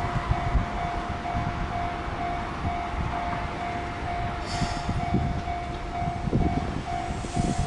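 Japanese railway level-crossing alarm ringing, one steady electronic ding repeated about twice a second, over a low rumble.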